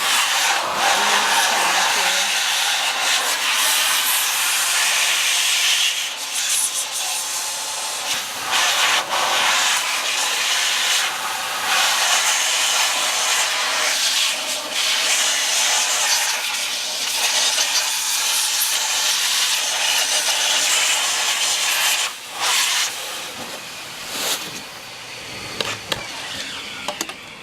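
Air blower running with a loud, steady rushing hiss, blowing bees off honey frames; it drops off about 22 seconds in.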